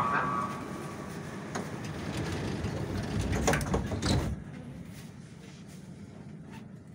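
81-717 metro car slowing to a stop at a platform. Its running noise is steady, with a few sharp clicks and knocks, and it falls away suddenly about four seconds in as the car halts, leaving a low hum.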